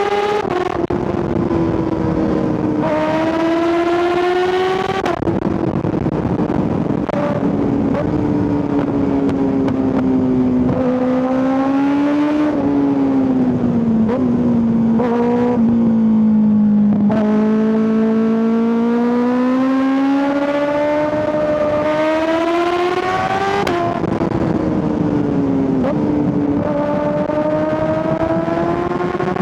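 2025 Kawasaki ZX-6R's 636 cc inline-four engine pulling hard through the gears, its pitch climbing in long sweeps and dropping sharply at each gear change. Around the middle it comes off the throttle, the pitch sinking low, then it climbs again in one long rising pull before shifting up.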